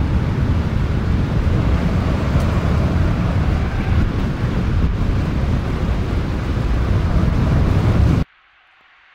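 Steady rush of wind and road noise from driving at speed behind the car, heavy in the low rumble; it cuts off abruptly near the end, leaving a faint quiet background.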